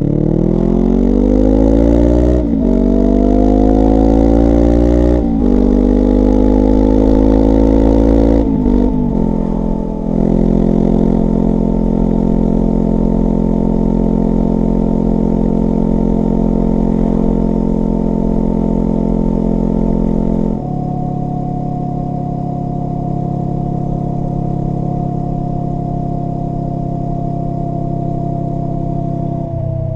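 Honda NX500's parallel-twin engine through a Black Widow UN30H slip-on exhaust with its dB killer removed, accelerating hard and climbing in pitch through three upshifts. It then holds a steady cruise, drops to a lower steady engine speed about two-thirds of the way through, and falls away near the end.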